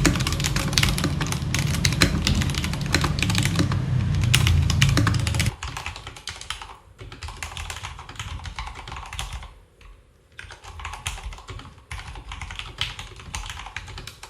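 Rapid typing on a mechanical keyboard, a fast run of clacking keystrokes. The first five seconds or so are louder and deeper; after that the keystrokes are quieter, with a couple of short pauses.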